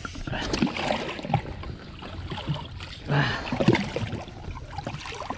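Seawater sloshing and splashing irregularly around a drifting personal watercraft in two main surges, with a few small knocks.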